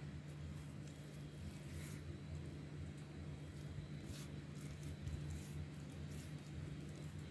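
Fingers rubbing and dabbing egg wash over soft raw bread dough, making faint wet squishing and patting sounds, over a steady low hum.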